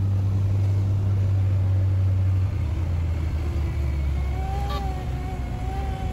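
Light propeller aircraft's piston engine droning, heard from inside the cabin, with the drone dropping lower about two and a half seconds in. A faint steady high tone sounds over it in the last two seconds.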